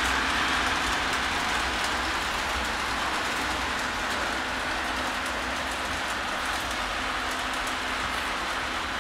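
Electric model train running along its metal track: a steady rolling rush of wheels on rail with a faint motor hum, easing slightly in the first few seconds and then holding level.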